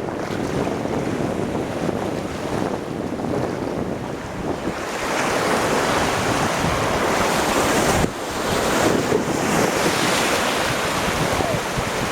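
Wind buffeting the microphone over rushing, splashing sea waves. The noise grows louder about five seconds in and breaks off sharply for a moment near eight seconds.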